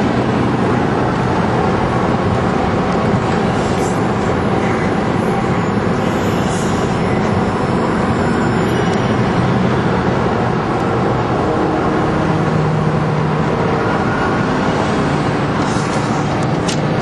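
Steady engine, tyre and wind noise of a car at motorway speed, heard from inside the cabin.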